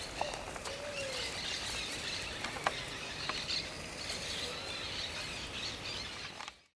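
Several wild birds calling and chirping over a steady outdoor hiss, with short arched notes repeating; the sound cuts off abruptly near the end.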